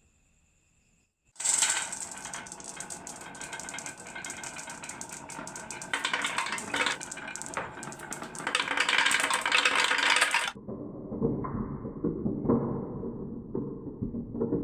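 Many marbles rolling and clattering down a marble run, a dense rattle of small clicks that starts suddenly about a second and a half in and cuts off abruptly near the end, followed by a duller, muffled clicking rattle.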